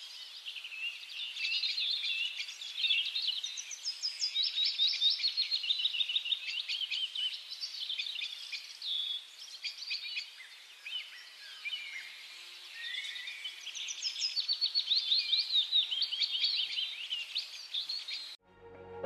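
Songbirds singing: a busy run of quick, high chirps and trills that cuts off suddenly just before the end.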